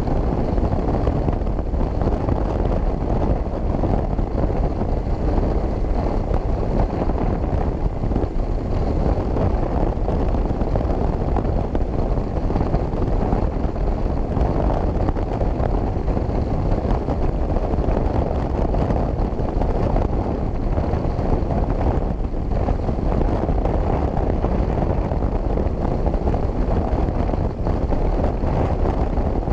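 Motorcycle cruising at steady highway speed: a constant rush of wind over the camera microphone mixed with engine and tyre noise, with no changes in speed or gear.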